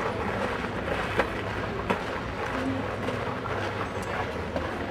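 Steady outdoor background noise with a few sharp clicks, about a second and two seconds in.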